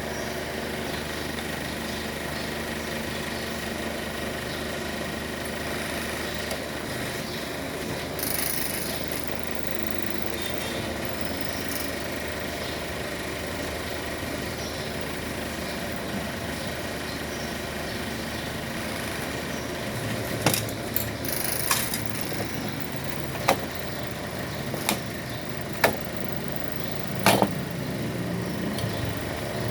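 Steady background hum, with several sharp clicks and taps in the last third.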